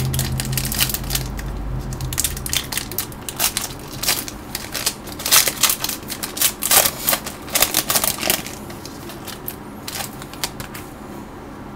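A foil trading-card pack being crinkled and torn open by hand: a rapid, irregular run of sharp crackles and rips that thins out about eight seconds in.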